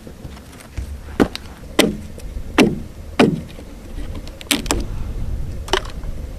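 Dry branches being snapped and broken for firewood: about six sharp cracks spaced half a second to a second apart.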